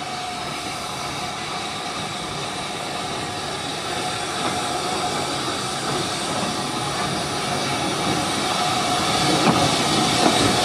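SR U Class mogul steam locomotive No. 31806 drawing close at low speed, tender first, with a steady hiss of steam that grows louder as it comes alongside. A couple of small clanks come near the end.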